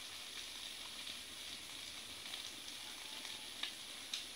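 Salted fish frying in oil in a steel pan, a steady sizzle with a few sharp pops near the end.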